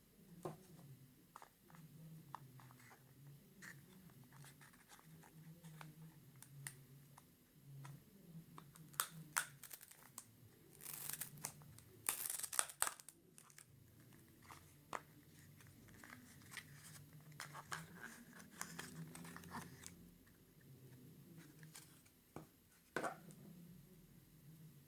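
Packaging being handled and opened by hand: crinkling and tearing of wrapping with scattered small clicks and knocks, busiest in a noisy stretch about halfway through.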